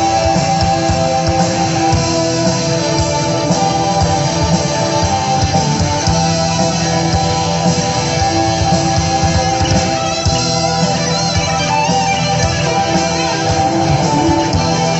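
Live rock band playing: electric guitars holding sustained chords over bass, drums and keyboard, loud and without a break.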